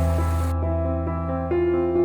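Calm instrumental background music: electric piano notes over a low held bass. A rain-like hiss underneath cuts off suddenly about half a second in.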